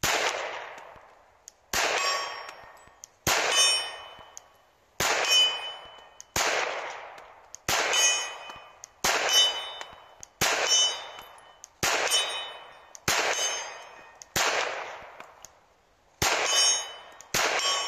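Glock 19 Gen5 9mm pistol fired thirteen times at a steady pace, about a second and a half apart. Each shot is followed by the clang of a steel target struck at 50 yards, which rings on and dies away before the next shot.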